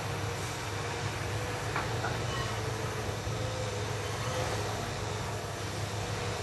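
Distant Hitachi EX200 hydraulic excavator running under load, a steady diesel engine drone with a thin steady hydraulic whine over it. A faint short click about two seconds in.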